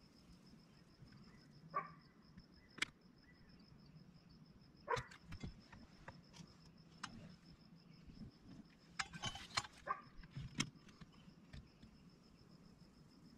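Scattered small clicks and knocks as a hand-held hot stapler's heated prongs set metal staples into a cracked plastic boat windshield. Under them runs a faint, steady, high-pitched pulsing tone.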